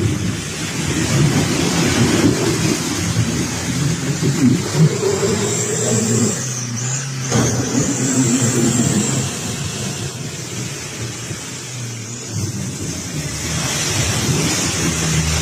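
Off-road 4x4's engine running and revving up and down under load, easing off briefly about seven seconds in.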